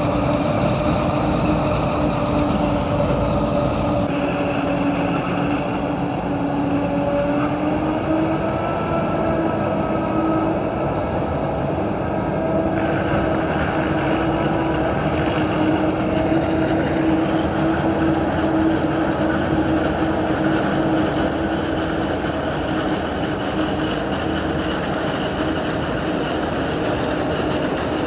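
Large harvesting machine running steadily: a loud mechanical drone with a steady hum whose pitch rises slightly about eight seconds in.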